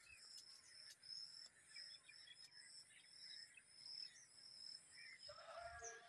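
Faint rural ambience: a high chirp repeating about twice a second over a steady high hiss, with scattered bird calls. Near the end comes a short pitched animal call.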